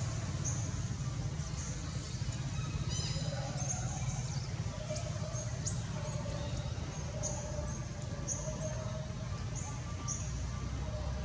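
Birds chirping: short high chirps repeating irregularly about once a second, with a brief layered call about three seconds in, over a steady low rumble.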